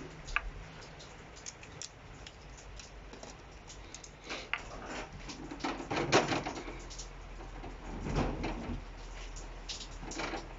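Irregular clicks and light clunks of hand tools and parts being handled while work starts on removing the intercooler from the engine, with louder knocks about six and eight seconds in.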